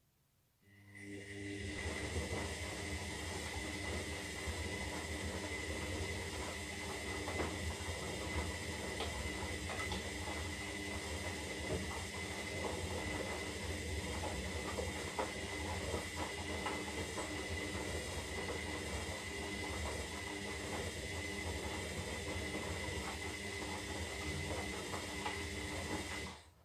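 Zanussi Lindo 300 washing machine running: a steady machine rumble with a constant high motor whine. It starts about a second in and cuts off sharply near the end.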